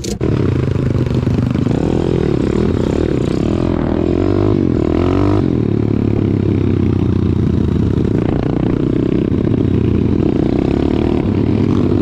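Motor vehicle running under way: a steady low engine rumble whose tone wavers up and down, with clattering and scraping mixed in. It starts abruptly.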